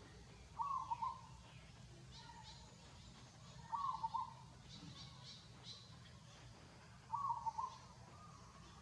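An animal calling three times, each call a short warbling note about half a second long and about three seconds apart, with faint high chirps in the background.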